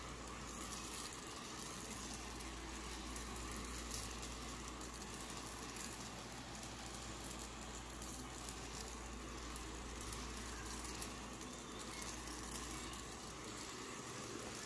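Carpet sprayer wand misting cleaning solution onto pet-stained carpet in a steady hiss that cuts off near the end.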